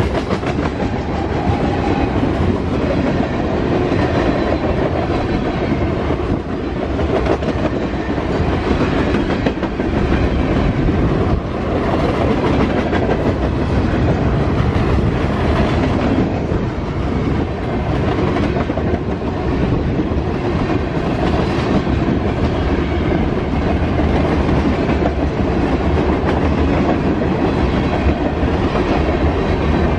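Freight cars (tank cars, covered hoppers and autoracks) rolling past close by: a steady, loud rumble of steel wheels on rail with clickety-clack over the rail joints.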